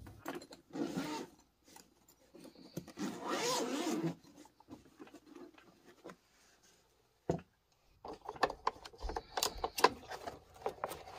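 Zipper of a hard-shell sharpener carrying case being pulled open in two rasping pulls, the second longer. A sharp click follows, then light plastic and metal clicks and rubbing as the sharpener system inside is handled.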